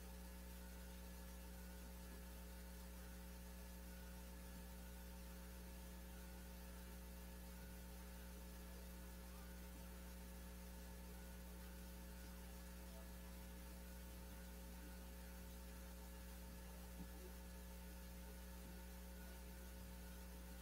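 Steady electrical mains hum over a faint hiss, otherwise near silence.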